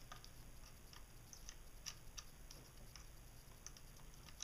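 Faint, irregular clicks of multimeter probe tips touching and scraping on the pins of an Audi clockspring's connectors. The meter gives no continuity tone, the sign that the clockspring is broken internally.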